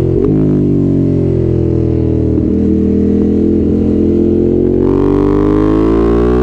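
Ducati Monster's L-twin engine under way, with a quick upshift just after the start. The note sags slightly, then climbs steadily as the bike accelerates.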